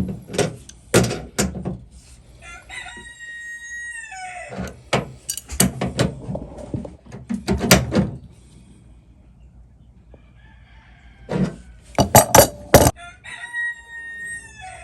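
A rooster crowing twice, about two seconds in and again near the end, over sharp clicks and knocks from a wrench working on the line-set fittings; the knocks are loudest a little before the second crow.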